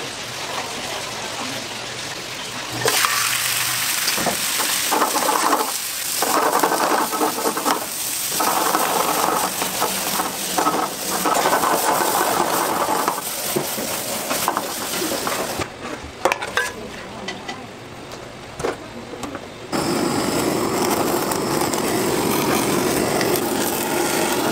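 Sliced meat stir-frying in a pan over a high gas flame, sizzling with the scrape and clatter of stirring. About twenty seconds in it gives way to a steadier rushing hiss as a blow torch sears the meat.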